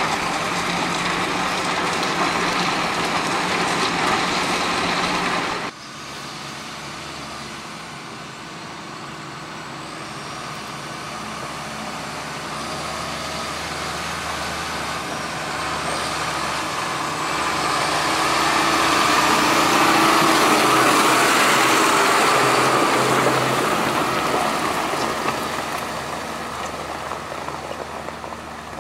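A loud, dense noise that cuts off abruptly about six seconds in. Then a heavy vehicle is heard approaching, passing loudest about twenty seconds in, and fading away.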